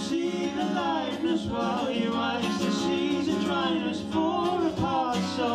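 Live male vocals singing a melody over a strummed acoustic guitar.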